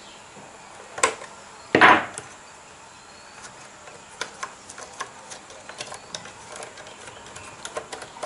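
Clicks, scrapes and light ticks of a hand working a nut loose inside a plastic blender base. There is a sharp click about a second in, a louder scraping rattle just before two seconds, then a run of small ticks.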